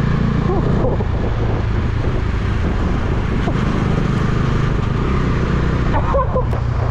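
Motorcycle engine running steadily while riding, with wind rushing over the helmet-mounted microphone.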